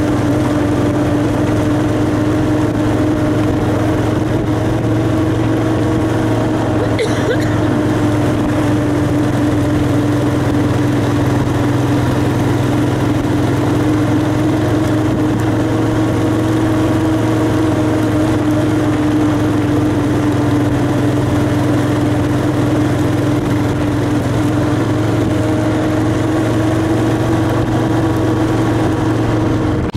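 ATV four-wheeler engine running at a steady pitch while riding along a dirt trail, with a brief knock about seven seconds in.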